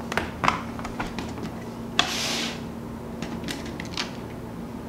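Plastic screwdriver-bit case being set down on a table and opened, with small clicks and clatter of plastic and metal bits as a screwdriver is taken out. There is a short scrape about two seconds in.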